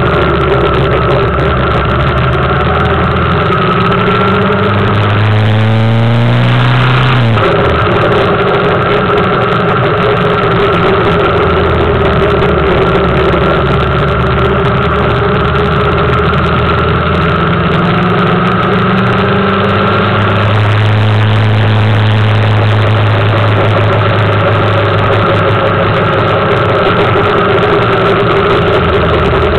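Suzuki GSX750F's inline-four motorcycle engine running on the move. The revs climb twice, about five seconds in and again just past the middle, and hold steady in between.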